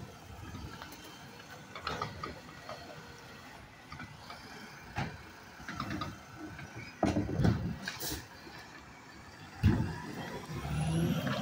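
Mack LR garbage truck with a Heil automated side-loader body working a curbside pickup. The engine runs low under a string of loud clanks and knocks from the lifting arm and trash cart, with a very short hiss partway through and the engine building up near the end.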